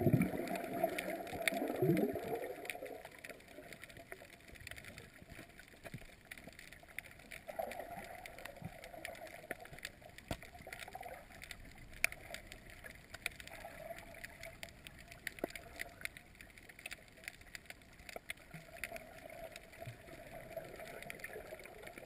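Underwater sound through a GoPro's waterproof housing: muffled water movement and gurgling, loudest in the first three seconds, then a faint steady hiss scattered with small clicks.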